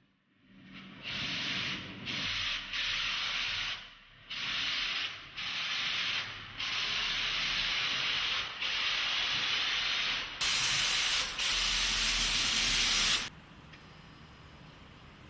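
Compressed-air paint spray gun hissing in a series of bursts a second or two long, with short gaps between them, as car body panels are sprayed. Near the end come two louder, brighter hisses, then the spraying stops.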